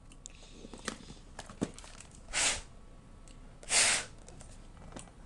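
Two short puffs of breath blown across the work, about a second and a half apart, between light clicks and scrapes, while old thermal paste is being cleaned off the laptop's CPU and heatsink.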